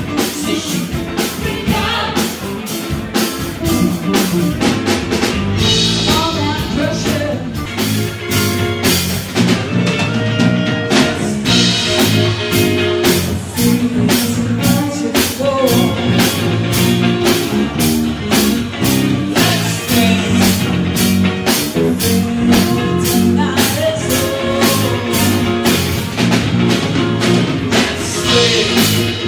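Rock band playing a song: a singer's vocal over electric guitar, bass guitar and a drum kit keeping a steady beat.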